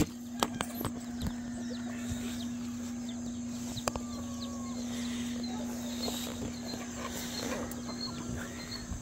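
Flock of backyard chickens clucking and calling over a steady low hum, with a few knocks in the first second.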